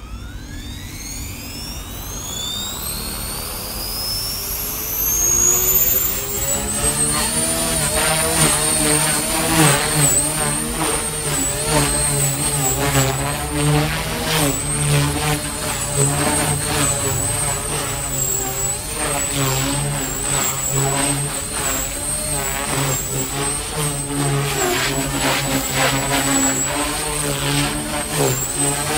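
Align T-Rex 300X electric RC helicopter spooling up: a whine from its motor and rotor that rises in pitch and loudness over the first six seconds or so, then holds at a steady high pitch, wavering slightly as it flies.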